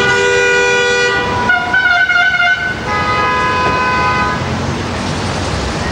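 Vehicle horns honking in street traffic: three long blasts one after another in the first four and a half seconds, the middle one wavering in pitch, over steady traffic noise.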